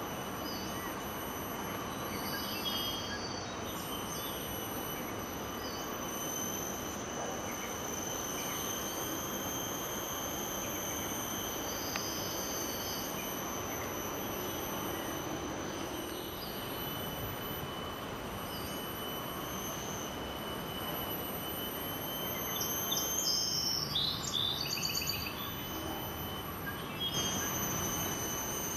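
Tropical forest ambience: insects keep up steady high-pitched drones at several pitches over a constant hiss. About three-quarters of the way through, a bird gives a quick series of chirping calls.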